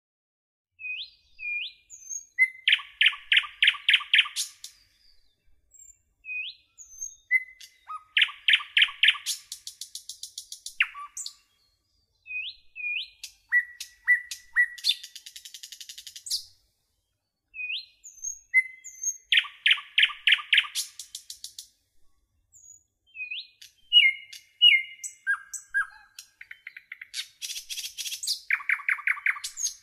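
A bird singing a repeated song phrase about every five to six seconds. Each phrase is a few short upslurred whistles, then a rapid run of bright notes and a high, thin trill.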